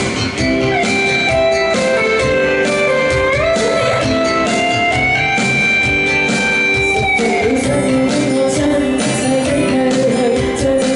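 Cantopop song performed live: a woman singing into a microphone over instrumental backing music.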